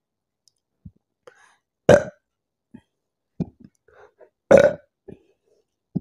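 A woman burping twice, loud short burps about two seconds and four and a half seconds in, the second a little longer, with faint small mouth sounds between. The burps come from the gas of carbonated cola she is drinking.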